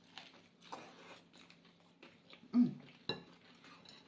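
Quiet eating and food-handling sounds: light clicks and taps of food and utensils, with a brief voiced sound about two and a half seconds in and a sharp click just after it.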